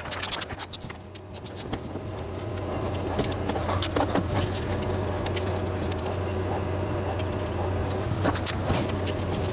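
A steady low hum of a running vehicle engine that grows louder over the first few seconds, with scattered short metallic clicks and taps of hand-tool work.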